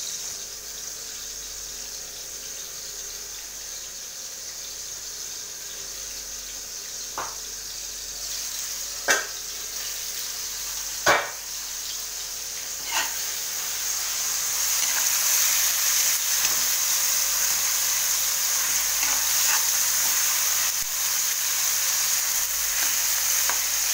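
Sliced tomatoes and garlic sizzling in hot oil in an aluminium wok, the sizzle growing louder about halfway through. A few sharp knocks come before the sizzle swells, and a metal spoon stirs the pan near the end.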